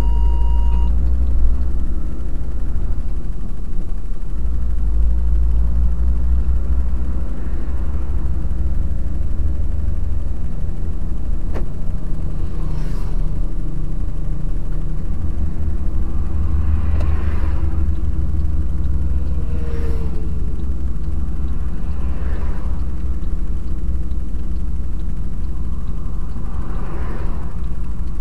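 Truck engine and tyre noise heard inside the cab while driving, a steady low rumble. A few brief swells of noise from passing traffic come and go in the second half.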